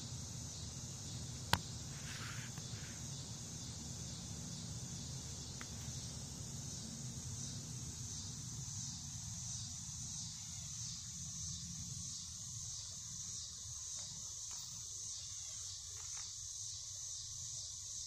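Chorus of insects, typical of crickets, a high pulsing trill that keeps on steadily. A single sharp click about a second and a half in.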